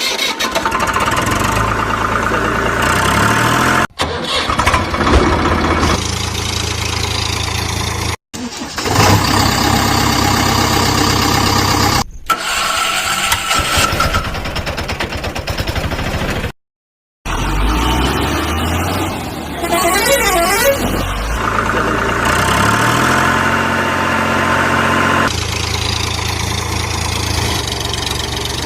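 Heavy vehicle engines running, with blaring vehicle horns, in a string of short segments that cut off abruptly several times.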